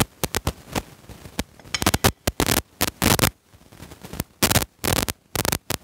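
Hard chalk being crunched between the teeth close to a clip-on microphone: a quick, irregular series of sharp, crackly crunches with short gaps between them.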